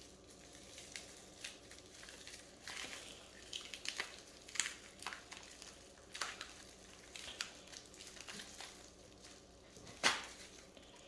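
Tight plastic shrink wrap and bubble wrap crinkling and crackling faintly in irregular bursts as it is picked at and pulled off a knife, with a louder crackle near the end.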